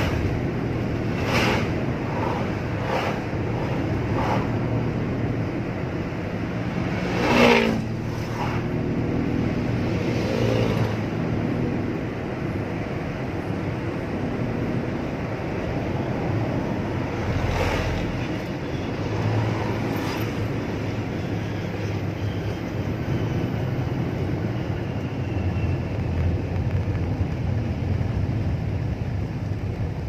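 Toyota Wigo being driven: steady engine and road rumble, with a few short knocks, the loudest about seven seconds in.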